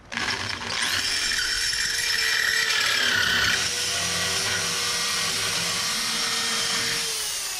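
Rotary tool with a rotary burr file grinding out engine mounting holes to lengthen them into adjustment slots. It spins up at the start, runs steadily with a rasping grind as the burr cuts, and begins to wind down near the end.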